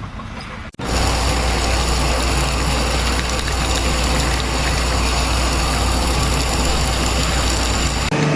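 A heavy engine running steadily and loudly with a deep low hum. It starts about a second in and cuts off shortly before the end.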